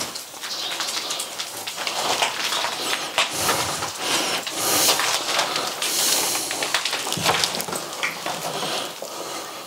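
Footsteps crunching and crackling irregularly over a debris-strewn floor.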